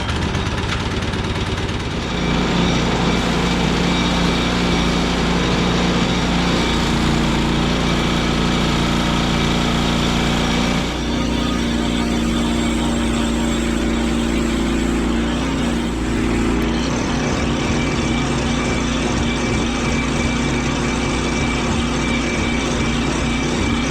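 Frontier OS23 portable sawmill's engine starting and running steadily, its pitch changing about 2, 11 and 17 seconds in.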